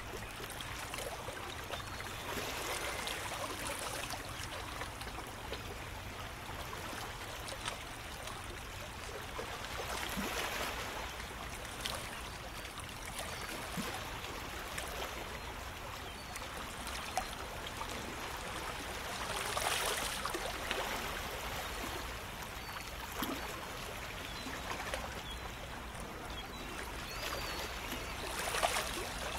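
Shallow water lapping and trickling among rocks, a steady wash that swells up every nine seconds or so.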